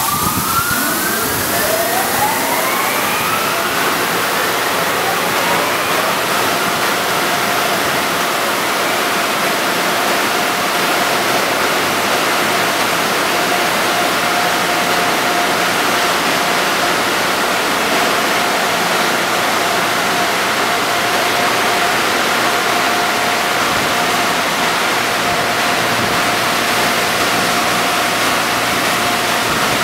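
Automatic tunnel car wash running: a steady rush of water spray and machinery. Over the first few seconds a motor spins up with rising whines, which then settle into a steady whine over the rushing noise.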